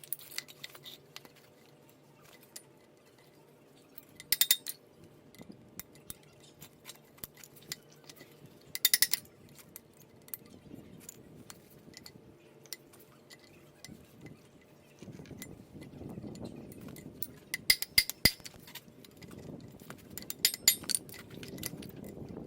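Hand tools clinking on metal, with several short runs of quick hammer taps, in keeping with a ball peen hammer and sockets being used to drive the cups out of the driveshaft's front U-joint.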